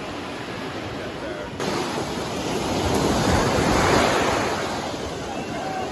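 Surf washing onto a sandy beach: a surge of breaking waves that builds for about two seconds and then falls away.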